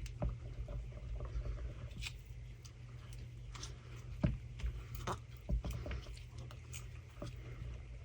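Stirring thick epoxy resin with black dye paste in a mixing cup: irregular soft clicks and taps of the stir stick against the cup, over a steady low hum.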